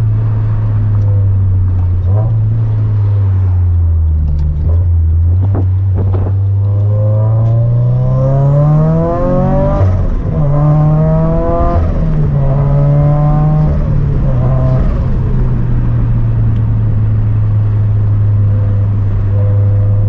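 Turbocharged 2.0-litre flat-four of a 2013 Scion FR-S (Greddy turbo kit, catless front pipe, quad-tip catback), heard from inside the cabin as the car accelerates through the gears. The revs climb from about six seconds in, drop sharply at a shift near ten seconds, climb again and drop at another shift a couple of seconds later. The engine then settles to a steady cruise note.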